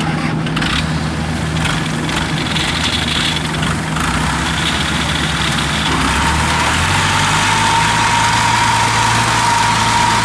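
Kubota combine harvester's engine running steadily. About six seconds in, its note shifts and a steady high whine comes in.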